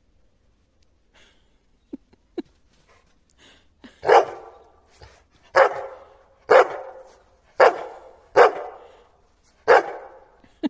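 Labrador retriever barking: about six loud single barks roughly a second apart, starting about four seconds in, after two short sounds a couple of seconds earlier. The dog is barking in protest at a faked throw, having realised that nothing is being thrown.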